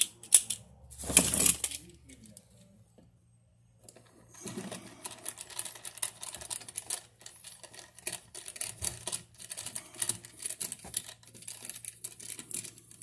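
Hand screwdriver backing out a long outlet mounting screw: a dense run of small rapid clicks and scrapes of metal on metal from about four seconds in. A brief loud handling noise comes about a second in.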